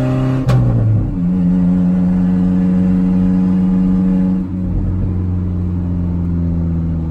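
Nissan pickup's engine and loud exhaust under acceleration, heard from inside the cab. A sharp knock about half a second in, then the engine note drops and climbs to a steady pull. A little after four seconds it drops again to a lower steady note.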